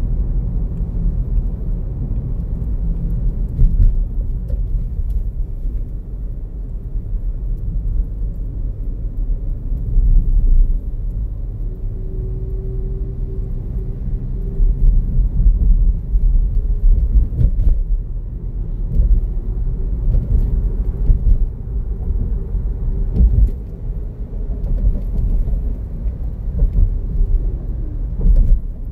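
Car driving at speed, heard from inside the cabin: a steady low rumble of road and engine noise, with a few short thumps along the way.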